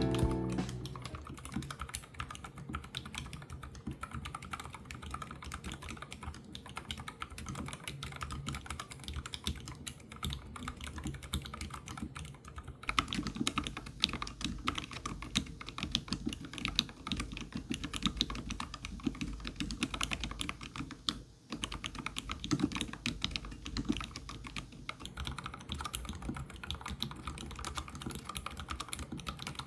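Continuous fast typing on a YUNZII L75 low-profile mechanical keyboard with Otemu red linear switches, a dense stream of clicky keystrokes. About halfway through the strokes grow fuller and heavier, and there is a brief pause about two-thirds of the way in.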